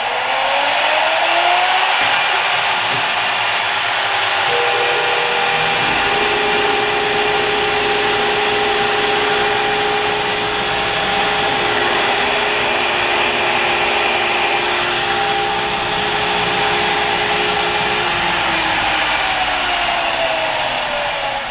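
Avid Pro CNC router spindle whining as it spins up, then running at speed while a Datron 2-flute 20 mm facing end mill takes a facing pass across an aluminum block, with added tones and rumble while it cuts. The whine falls away as the spindle spins down near the end. A steady rush of dust-shoe suction runs underneath.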